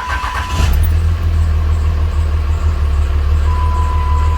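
Dodge Ram 3500's Cummins straight-six diesel engine cranking for well under a second, catching, and settling into a steady loud idle, on its first start after an alternator replacement. A steady electronic dash warning tone sounds at the start and again near the end.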